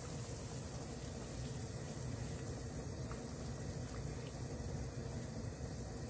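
Pot of radish broth at a rolling boil, bubbling steadily.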